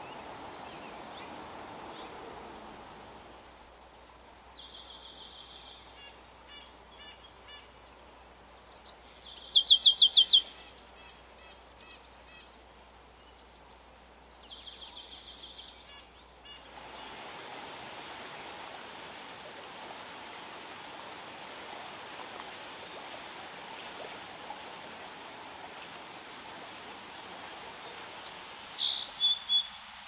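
A songbird singing three songs about five seconds apart, each a quick trill followed by a run of short notes, the loudest about nine seconds in. A few brief chirps come near the end, over steady background noise.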